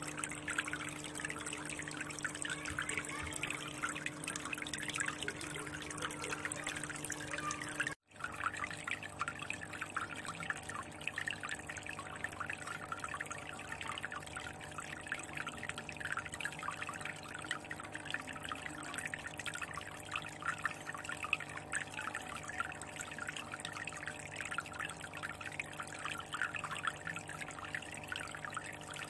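Water trickling and splashing steadily into an aquarium, over a low steady hum. The sound cuts out for an instant about eight seconds in, then carries on the same.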